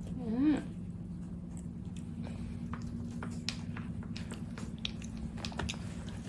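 Baby chewing and mouthing a spoonful of oatmeal: many small wet mouth clicks, with a short voiced sound about half a second in. A steady low hum runs underneath.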